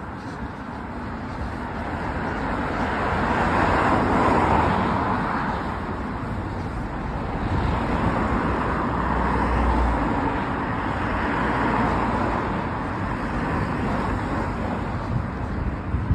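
Road traffic on a city street: several cars passing close by, their engine and tyre noise swelling and fading in turn.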